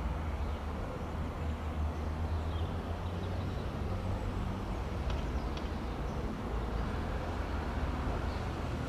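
Steady low drone of a diesel multiple unit's underfloor engines as the train draws slowly towards the station.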